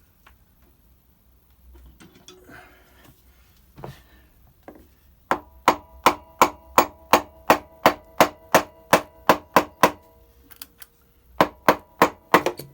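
Hammer tapping on a Kawasaki ZX-7R's clutch cover to break the stuck cover free: a quick run of about fourteen strikes, about three a second, each with a short metallic ring, then a pause and four more strikes near the end.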